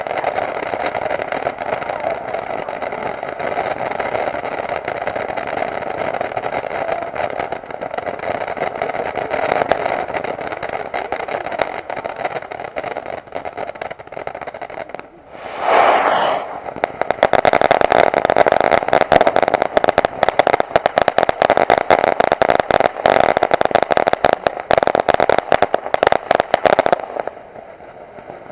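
Ground firework fountain spraying sparks: a steady rushing hiss full of crackles. It dips briefly about halfway, then comes back louder with denser crackling, and cuts off suddenly near the end.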